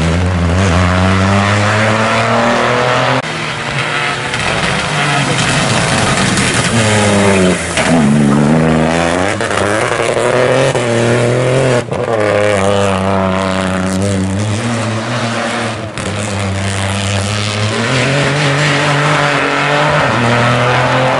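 Rally car engine revving hard on a wet stage, its pitch dropping under braking and climbing again as it accelerates, with short breaks at the gear changes. A hiss of rain and tyre spray runs under it.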